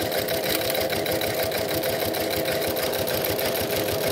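New-Tech GC-0303 walking-foot industrial sewing machine, driven by its servo motor, stitching steadily through over ten layers of canvas. The needle strokes come as a rapid, even run of ticks.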